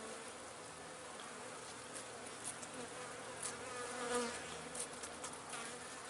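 Honey bees buzzing in a steady hum at an open hive, with single bees flying close past now and then, the loudest about four seconds in.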